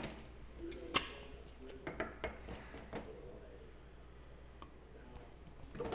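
A meat marinade injector and its container being handled while the injector is filled with melted butter-and-maple marinade: a few faint, spaced-out clicks and taps, most of them in the first few seconds, with quiet stretches between.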